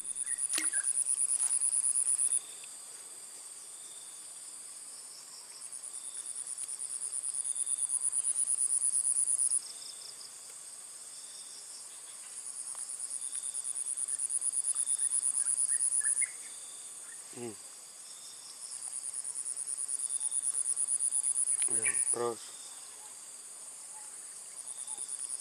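Insect trilling high and fast in repeated bouts of about three to four seconds, each growing louder and then stopping abruptly, with pauses of a few seconds between.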